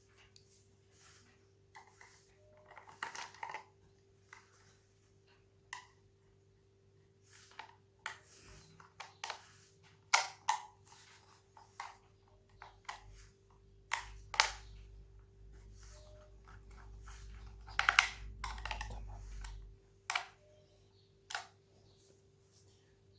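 Hard plastic parts of a Dyson V6 cordless vacuum clicking and knocking as they are handled and fitted back together, in irregular sharp clicks and short clatters over a faint steady hum.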